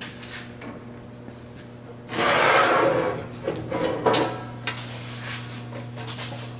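Metal waste collection bin of an SEM Model 2-SSD disintegrator being pulled out of its cabinet: a scraping slide about two seconds in, then several knocks and a sharp clack as the bin is handled. A steady low hum runs underneath.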